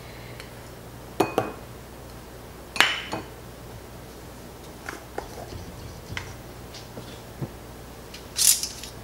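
Kitchenware being handled: scattered clinks and knocks of a measuring cup and utensil against a ceramic bowl and the countertop, the sharpest about three seconds in. Near the end, a short scraping rasp as the metal lid is twisted on a glass mason jar.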